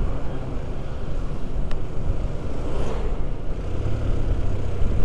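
Small two-wheeler engine running at road speed, under a low wind rumble on the handlebar-mounted microphone. A steadier, deeper drone comes in from about three and a half seconds in.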